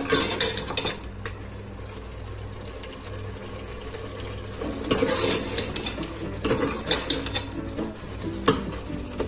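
Steel ladle stirring and scraping beef masala in an aluminium pressure-cooker pot, clinking against the metal side, over a low sizzle of the sauce frying. The clinks come in the first second and again in the second half, with a quieter stretch of sizzling in between.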